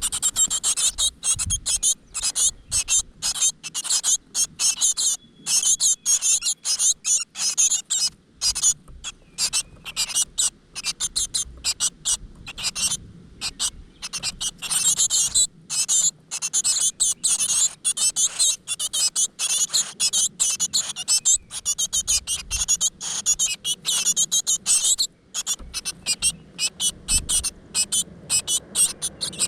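A brood of great tit nestlings giving high-pitched begging calls in a rapid, continuous chorus, the usual sound of chicks in the nest when food is brought.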